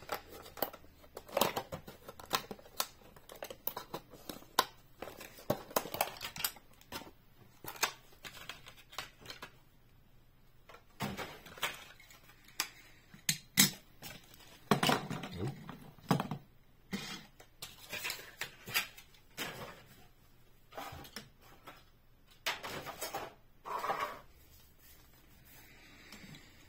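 Hands opening a toy car's plastic blister pack on its cardboard backing card: irregular crackling and clicking of the plastic and card, with brief pauses.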